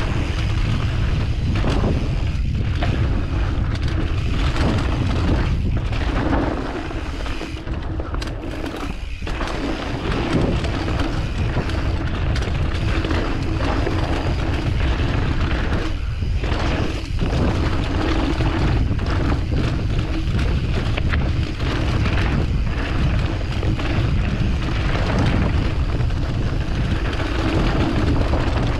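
Wind rushing over an action camera's microphone on a mountain-bike descent, with the rumble of tyres on a dirt trail and frequent knocks and rattles from the bike over bumps. The noise eases briefly twice, about six and sixteen seconds in.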